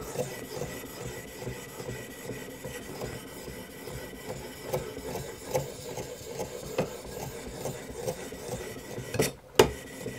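An abrasive being stroked along the edge of an M398 steel knife clamped in a guided sharpening system: steady scraping with small irregular ticks, while he works to raise a burr on the edge. Two sharp knocks near the end.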